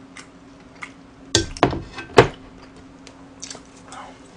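A large black serving plate being set down on a table: three sharp knocks and clatters within about a second, the last the loudest.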